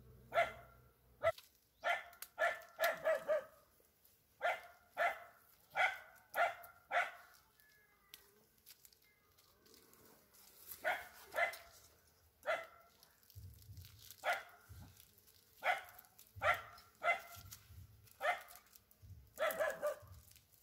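A dog barking persistently, one short bark every half second to a second, with a lull of a few seconds near the middle.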